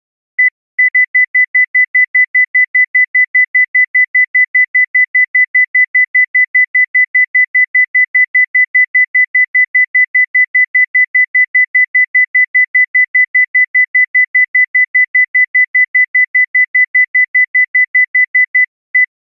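Heart monitor beeping at one high pitch: a couple of spaced beeps, then a fast run of about four beeps a second for most of the stretch, easing back to spaced beeps near the end. The racing beep rate is the monitor sound for a rapid heart rhythm such as ventricular tachycardia.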